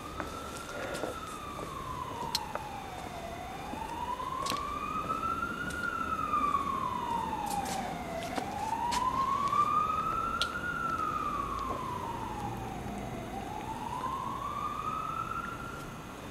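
Emergency vehicle siren wailing, its pitch rising and falling slowly about once every five seconds, fading away near the end. A few faint clicks over it.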